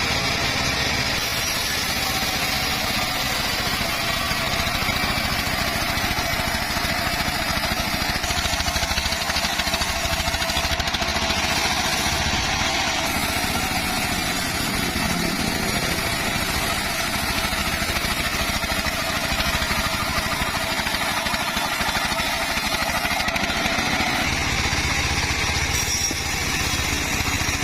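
Circular saw rig for cutting teak timber running steadily, a continuous engine-like drone with a fine rapid pulse.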